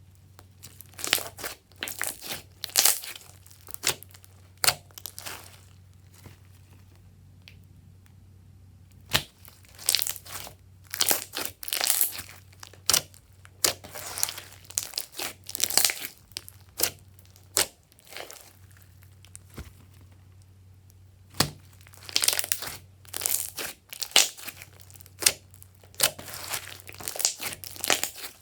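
Glossy slime being squished, poked and stretched by hand, giving irregular runs of sticky clicks and pops. There are two pauses of a few seconds, one about a third of the way in and one about two-thirds in.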